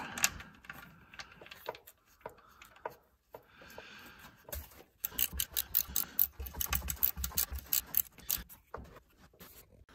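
Oil drain plug being threaded into a steel oil pan and tightened with a wrench: scattered small metal clicks at first, then from about halfway a fast run of wrench clicks, about five or six a second, for a few seconds.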